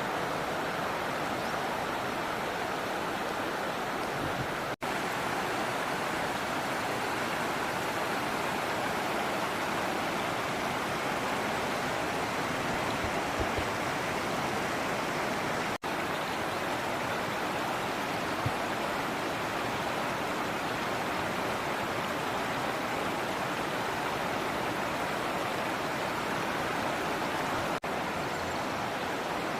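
Steady rush of flowing river water, an even continuous noise broken by three momentary dropouts.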